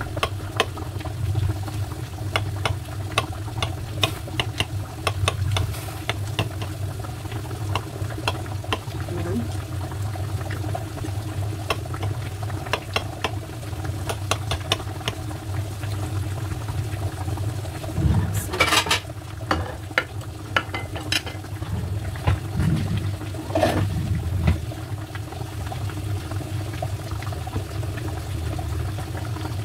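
Knife repeatedly clicking and scraping against the baking dish while cutting a baked potato, cheese and tomato casserole into portions. A couple of louder clatters come over halfway through, and a steady low hum runs underneath.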